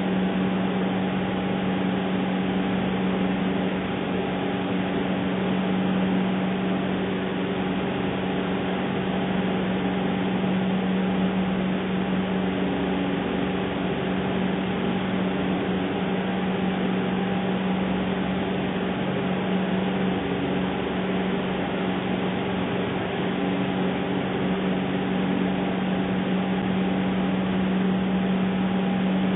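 A steady hum holding one low pitch, with fainter higher tones and a constant hiss, unchanging throughout.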